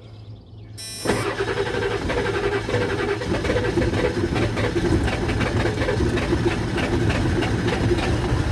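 Ford 7.3 Powerstroke V8 turbo-diesel being started: about a second in, the starter cranks and the engine fires almost at once, then keeps running with a steady clatter. The owner had not expected it to start, because of a fuel problem that had made it run rough.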